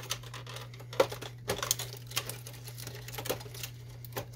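Small plastic clicks and rustling as flat ribbon cables are unlatched and pulled from their connectors on an inkjet printer's formatter board by gloved hands. A few sharper clicks stand out over a steady low hum.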